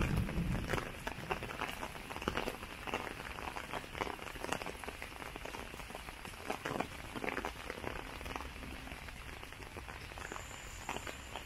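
Rain falling, with many irregular drops ticking and pattering on nearby surfaces. A low rumble dies away in the first second or so.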